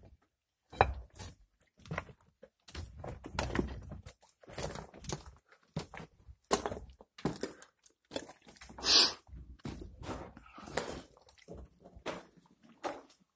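Irregular scuffs, knocks and rustles of footsteps on a rocky cave floor, mixed with handling noise of a handheld phone, with one louder scrape about nine seconds in.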